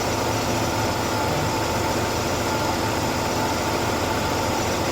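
Oldsmobile engine idling steadily, with no hissing from the vacuum hoses: the vacuum leak has been patched.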